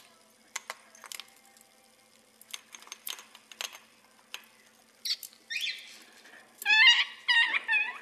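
A pet parrot in its cage: scattered clicks and taps of its feet and beak on the bars and toys, then short rising screeches about five seconds in and a loud warbling call near the end.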